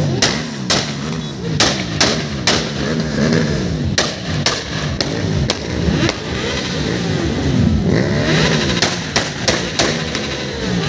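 Several sport motorcycle engines revving up and down over one another, with repeated sharp bangs at irregular intervals.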